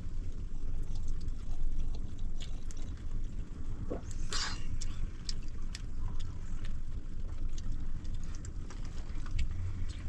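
A steady low rumble of wind buffeting the microphone, with the small scattered crackles of a wood fire and a brief louder rustle about four seconds in.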